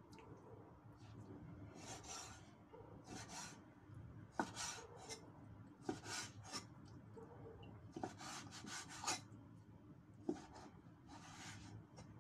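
Cleaver cutting a fish fillet into pieces on a round wooden chopping board: a series of rasping strokes as the blade slides through the flesh, with a few sharp knocks of the blade on the wood.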